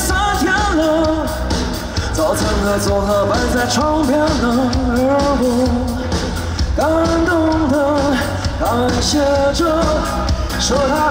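Live band playing a pop-rock song: a lead singer's voice gliding and holding notes over drums and bass.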